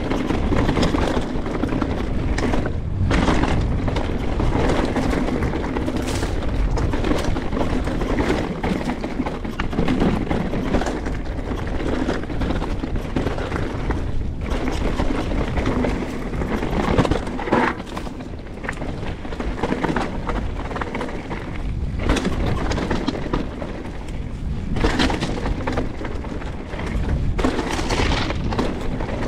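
Canyon Strive enduro mountain bike descending a rough trail: a constant rumble of tyres over rock and dirt, with rattling and sharp knocks from the bike striking rocks and landing, about a dozen hard hits spread through.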